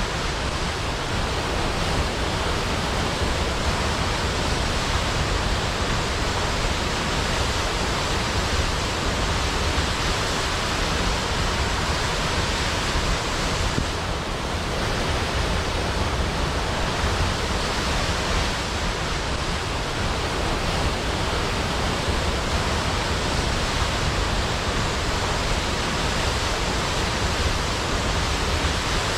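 Large waterfall crashing steadily into a pool: a dense, unbroken rush of falling water with a deep rumble underneath.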